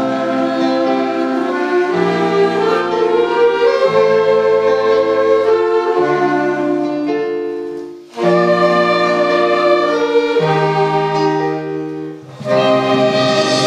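School wind band of clarinets and saxophones playing sustained chords in slow phrases, with a bass line stepping down every couple of seconds. The sound dips for a short breath between phrases about eight seconds in and again near the end.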